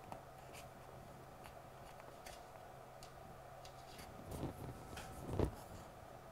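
Faint handling noises from hands at a resin model building on a desk: light clicks and ticks, then a few soft knocks, the loudest about five and a half seconds in.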